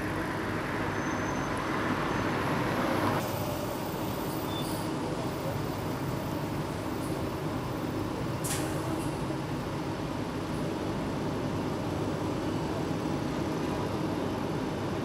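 Steady low rumble of a fire engine's diesel engine idling, with a louder hissing layer that cuts off suddenly about three seconds in and a single brief click later on.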